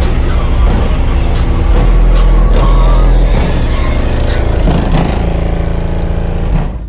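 Bass-heavy music played loud through a truck's competition car-audio system: eight Skar DDX 12-inch subwoofers in a blow-through box firing out of the rear window panel, heard from outside the cab. The deep bass notes hit hardest about two to three seconds in, and the music drops away near the end.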